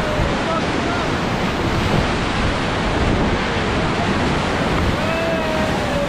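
Whitewater rapids rushing loudly and steadily around a river raft, with wind buffeting the camera microphone.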